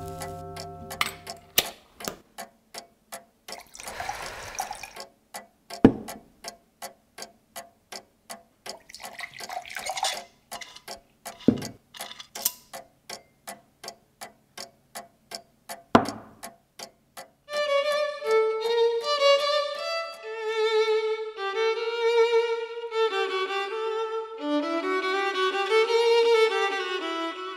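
A clock ticking steadily, about two to three ticks a second, with two brief swells of rushing noise and a few louder knocks among the ticks. About two-thirds of the way in the ticking stops and a solo violin plays a melody.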